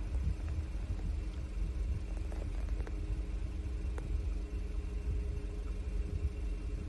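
A motor vehicle engine idling steadily: a low rumble with an even hum over it.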